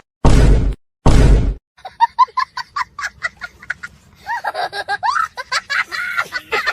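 Two short, loud bursts of noise, then a high-pitched giggling sound effect: quick 'hee-hee' notes several a second that turn into a busier cackle over the last few seconds.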